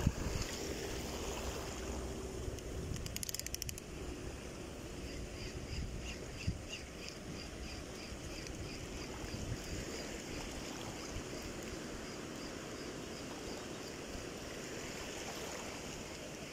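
Wind buffeting the microphone over shallow sea water lapping at the shore, a steady rushing noise with low rumble. Through the middle a faint, even ticking repeats a few times a second for several seconds.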